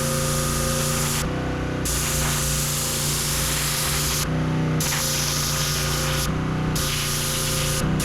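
Pressure washer running, the high-pressure spray hissing over a steady machine hum. The spray cuts out briefly three times: a little over a second in, about four seconds in and about six seconds in.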